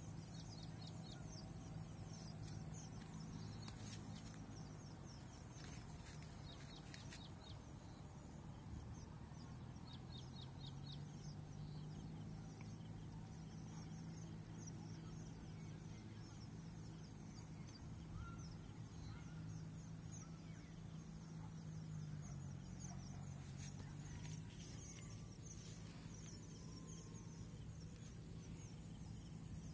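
Quiet open-field ambience: many short, high chirping calls repeating throughout over a low steady hum, with a few brief rustles.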